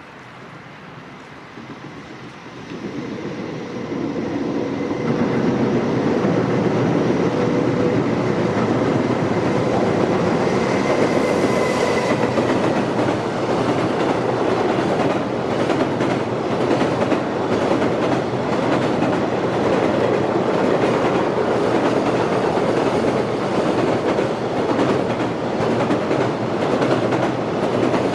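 Freight train running over a steel railway bridge: a heavy rumble grows over the first few seconds as it arrives, then a steady loud drumming of wheels and rail-joint clatter as the wagons pass.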